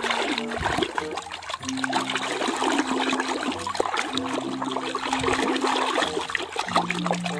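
A hand churning and swishing water in a basin, scrubbing a toy under the surface, with continuous splashing and sloshing.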